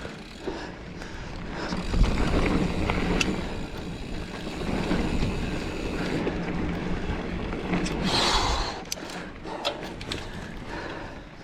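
Giant Fathom mountain bike rolling over a dirt trail: steady tyre rumble and wind on the mic, with scattered clicks and rattles, and a brief louder hiss about eight seconds in.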